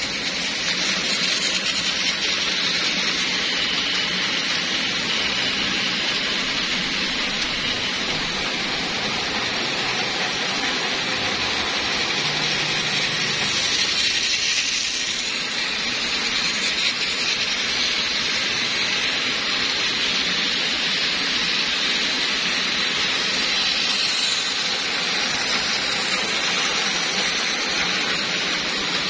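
Battery-powered toy trains running on plastic track: a steady, high whirring hiss of their small motors and gears with wheels rattling over the track joints, growing slightly louder for a moment about halfway through as a train passes close by.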